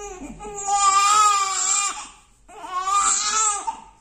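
Newborn baby crying: two long wailing cries, the second starting a little past halfway.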